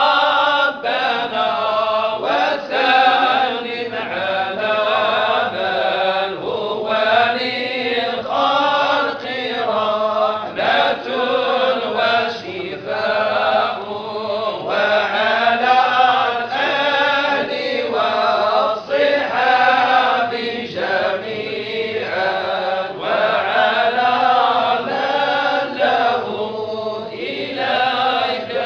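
Men's voices chanting together in a melodic, wavering line: a Sufi group dhikr of the Tijani order.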